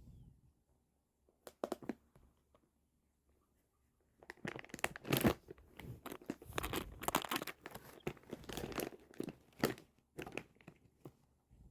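Plastic packaging crinkling and being torn: a few brief rustles, then dense, irregular crackling from about four seconds in.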